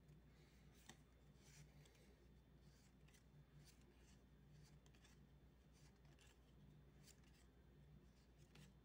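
Faint soft swishes and clicks of Magic: The Gathering trading cards being slid one by one from the front of a small stack to the back, unevenly about once a second.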